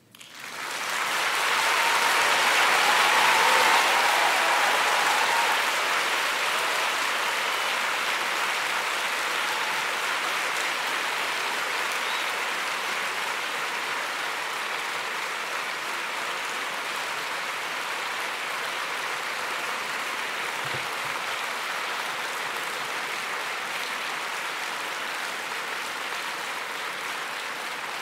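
Large audience applauding, building quickly to its loudest a few seconds in and then going on steadily, slowly easing off.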